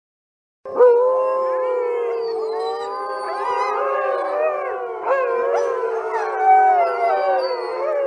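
Several wolves howling together, many overlapping long calls gliding up and down in pitch, starting about half a second in.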